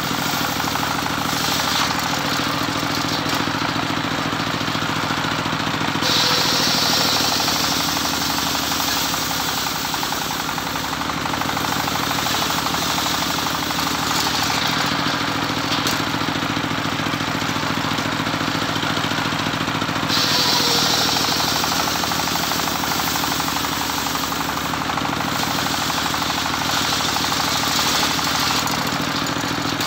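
Engine-driven homemade circular sawmill running steadily through teak. Two stretches of louder, high-pitched cutting noise come in, about six seconds in and again about twenty seconds in, as the blade bites into the wood.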